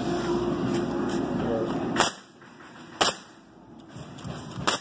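Pneumatic coil roofing nailer (Jaaco NailPro NPCN-8350) firing three times into rigid foam insulation board, each shot a sharp bang: the first about two seconds in, the second a second later, and the third near the end. Before the first shot, a steady drone with a held tone runs underneath.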